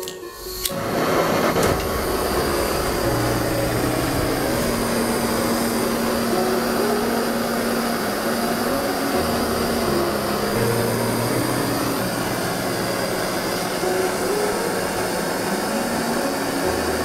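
Hand-held propane torch on a disposable cylinder lit with a lighter, catching with a sharp click less than a second in, then its flame hissing steadily.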